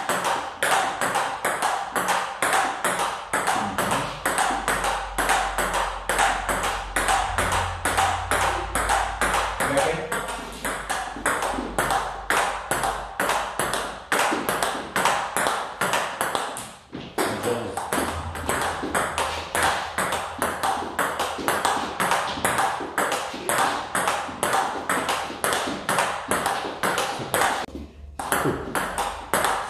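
Table tennis balls struck by a bat and bouncing on the table in a fast, even drill, about three sharp clicks a second. The run breaks off briefly about halfway and again near the end.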